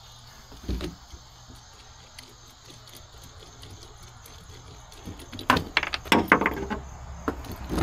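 Small bimini-top track-mount parts clicking and rattling in the hands as they are tried in a boat's mounting track. There is a soft knock about a second in, then a quick run of clicks about five seconds in.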